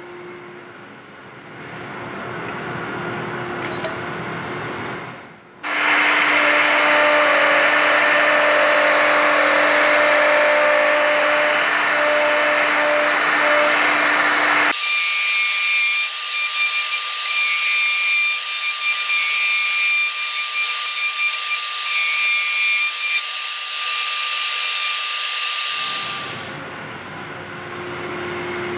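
Electric router spindle on a gantry woodworking machine running and cutting into a wooden cylinder held in a jig. It makes a loud, steady whine with the rush of the dust extraction. The sound changes abruptly about 15 seconds in and stops about 26 seconds in.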